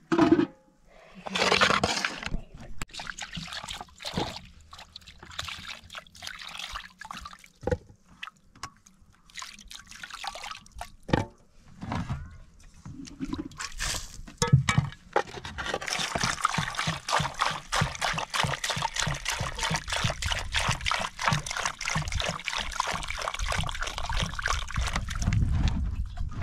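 Scattered knocks and clatter of potatoes being handled in metal pans, then, starting a little past halfway, water poured from a plastic container splashing steadily over potatoes in a metal pot.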